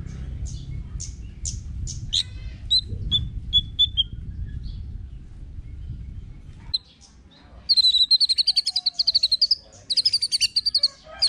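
White-rumped shama singing: a string of short, sharp whistled notes and a few clear notes, then, past the middle, two fast rapid-fire runs of repeated notes of about two seconds each.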